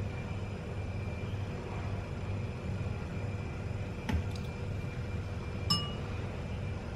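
Steady low hum of room tone, with a soft tap about four seconds in and a short ringing clink of kitchenware a little before the end.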